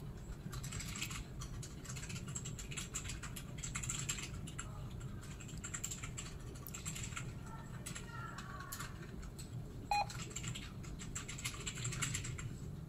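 Irregular light clicking and tapping, like typing on a keyboard, over a steady low hum. A short beep sounds about ten seconds in.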